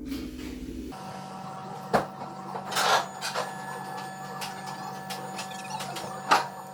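A steady machine hum that shifts abruptly to a different set of tones about a second in, with a few sharp knocks and clicks over it.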